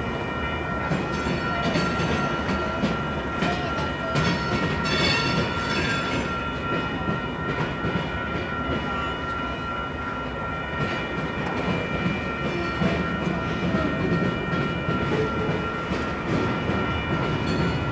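Union Pacific manifest freight train rolling past, its wheels clicking over the rail joints under a steady rumble, with a steady high-pitched tone held over it.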